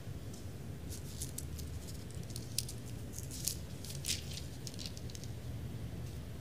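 Bible pages being handled and turned close to a headset microphone: an irregular run of short, crisp rustles and ticks over a low steady room hum.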